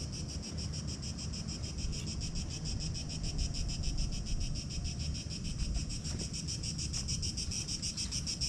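Insects chirring: a steady, high-pitched, rapidly pulsing drone, over a low rumble.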